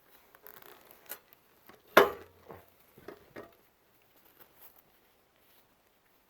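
Scattered clicks, scrapes and rubbing from handling a circular saw jammed in a log, with one sharp knock about two seconds in; the saw is not running.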